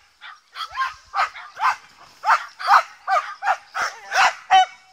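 A dog barking over and over in short, high barks, about three a second, louder from about two seconds in, typical of a dog excited while running an agility course.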